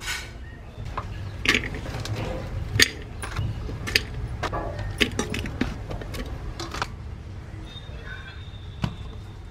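Chopped onions, green chillies and tomatoes being tipped into an empty metal pot: a run of clattering knocks and taps on the pot's bottom and sides, most of them between about one and seven seconds in.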